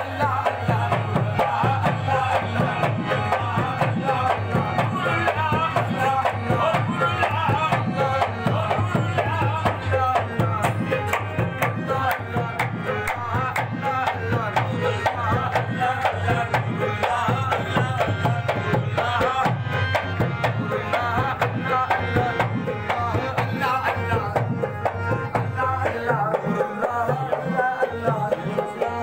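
Qawwali-style Sufi devotional music: a harmonium with singing over a steady, fast tabla-type hand-drum beat, loud and unbroken.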